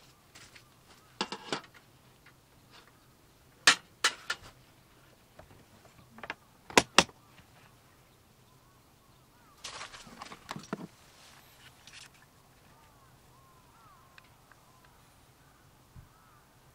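A series of sharp clicks and knocks, some in quick pairs, with a short burst of clatter about ten seconds in. Faint bird chirps can be heard in the last few seconds.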